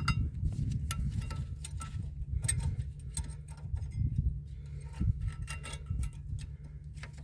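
Irregular small metallic clicks and taps of brake pads, clips and a screwdriver being worked into a car's rear disc-brake caliper bracket, over a low steady rumble.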